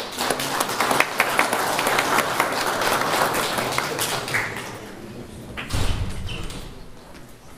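Audience applause: many hands clapping, dying away about five seconds in. A dull thump follows near the end.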